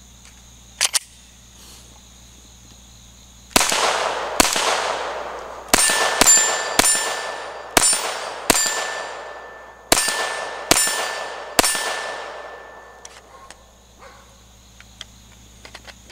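Glock 44 .22 LR pistol fired ten times at an uneven pace, the hits leaving a steel target ringing between shots. Two quick small clicks come about a second in, before the shooting.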